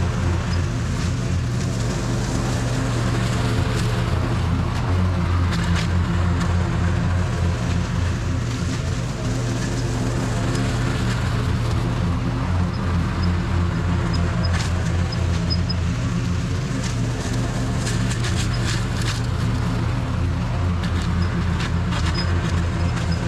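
Toro TimeCutter SS4260 zero-turn mower's engine running steadily while mowing grass, with scattered sharp clicks here and there, clustered about two-thirds of the way through.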